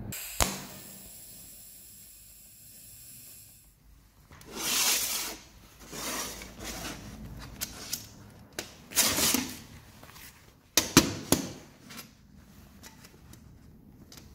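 A sharp click, then a hiss that fades away over a few seconds. After that, gloved hands handle bicycle chain links on a steel plate: rubbing of leather gloves and sharp clicks of the chain against the metal, loudest about eleven seconds in.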